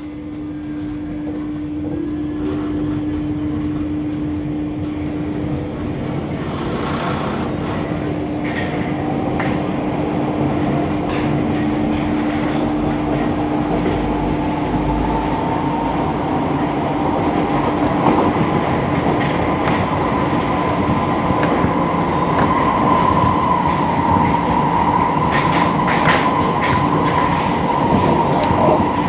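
Paris Métro MF77 train heard from inside the carriage, pulling away and gathering speed: a steady running noise that grows louder over the first few seconds, a motor whine that rises slowly in pitch in the second half, and scattered clicks of the steel wheels over the rails.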